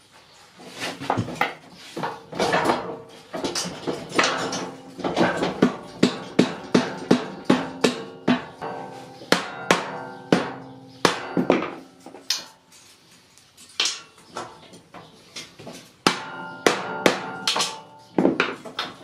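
Hammer blows on the metal parts of a motorcycle lift table, sharp ringing strikes in runs of about two a second with short pauses, as its pins are knocked into place.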